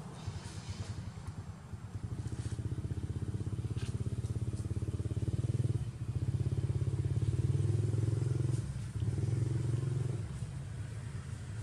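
A small engine running steadily with a fast pulsing hum, growing louder toward the middle and dropping off briefly twice before settling back.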